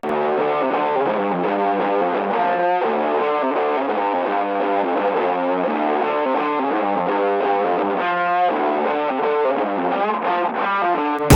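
Background music: a sustained melodic passage without drums or deep bass, sounding thin and muffled. Loud full-range music with drums comes back in right at the end.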